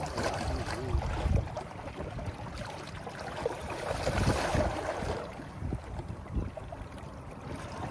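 Wind buffeting the microphone, with water washing at the shoreline; the gusts swell to their loudest around the middle.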